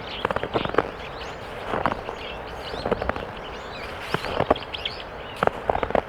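Footsteps on snow, each step a short squeaky crunch of packed snow underfoot, coming about once a second at a steady walking pace.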